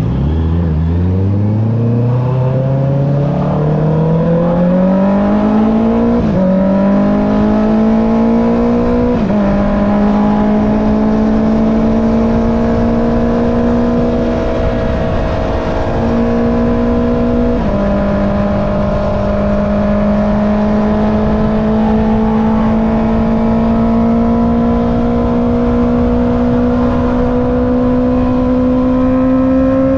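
Honda CB650R's inline-four engine through an Akrapovic exhaust, pulling up from low revs with rising pitch and two quick upshifts at about six and nine seconds. It then holds a steady high-revving cruise, with two brief throttle dips midway and a slow climb in pitch near the end.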